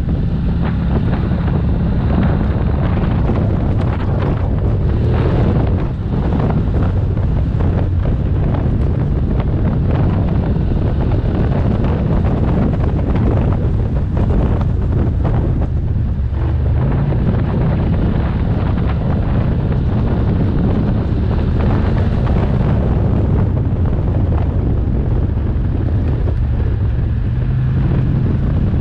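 ATV engine running steadily as the quad rides along a rough gravel trail, with heavy wind buffeting on the microphone and frequent jolts and rattles from the bumps.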